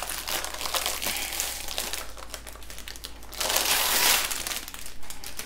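Clear plastic sleeve crinkling and rustling as a rolled diamond-painting canvas is slid out of it, louder for about a second around three and a half seconds in.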